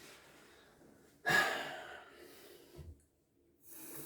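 A person's breath out, sudden and fading over about a second and a half, then a brief cut to complete silence.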